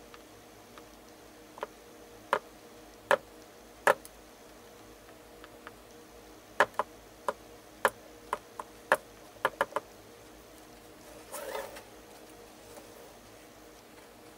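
A dozen or so sharp, irregular taps and clicks from a flat paintbrush and fingertips working a glued paper napkin onto a stretched canvas, followed by a short rustle as the canvas is shifted.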